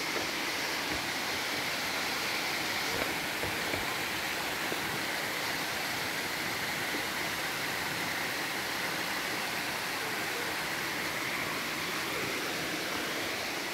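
A mountain stream rushing down a sloping bare-rock slide and small cascade, a steady, even rush of water.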